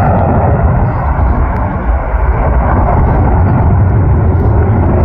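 Steady, loud rumble of an airplane's engines, a deep even noise with no change in pitch.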